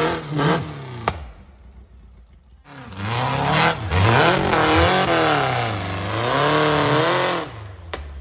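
Off-road buggy engine revving hard as it claws up a steep dirt hill, its pitch swinging up and down as the throttle is worked. It revs for about a second, drops back briefly, then revs again for several seconds, with a sharp crack near the start and another near the end.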